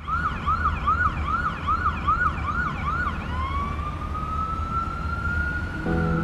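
Emergency-vehicle siren in a fast up-and-down yelp, about two and a half cycles a second, switching after about three seconds to one slow rising wail, over a steady low rumble. Music notes come in near the end.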